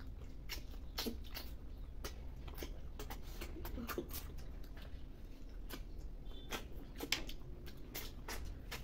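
Close mouth sounds of cooked snails being sucked from their shells and chewed: scattered short slurps, smacks and clicks at an irregular pace, over a steady low hum.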